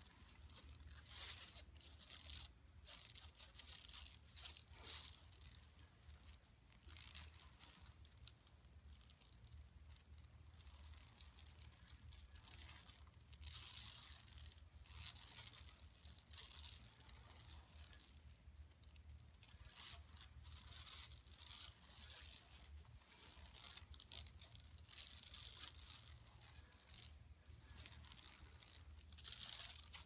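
Long fingernails scratching a shopping bag in a run of uneven strokes, each about a second long, making a dry, rasping scratch.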